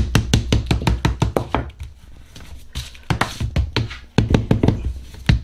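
A mallet tapping quickly, about five light blows a second, on the cardboard hemispheres of a 5-inch firework ball shell. The taps pause for a moment partway through, then start again near the end. They press the two filled hemis together to close the gap and make a tight shell.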